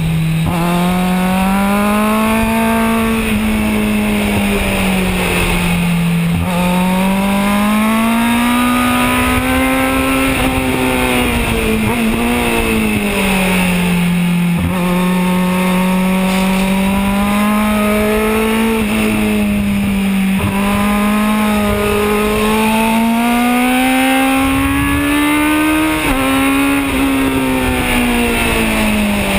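Kawasaki Z1000's inline-four engine heard onboard at circuit pace, its pitch climbing under throttle and sinking back several times as the bike accelerates along straights and slows for corners, over a steady rush of wind noise.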